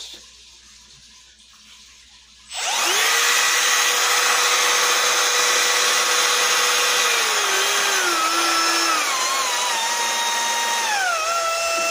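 Cordless brushless router switched on about two and a half seconds in and running with a steady whine. Its pitch steps down several times in the second half as the variable speed is turned down.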